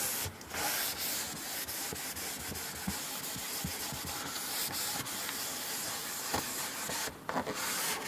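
A paper towel rubbing over a varnished wooden cabinet door as lemon oil is wiped into the finish: a steady papery swishing that pauses briefly twice, about half a second in and about seven seconds in.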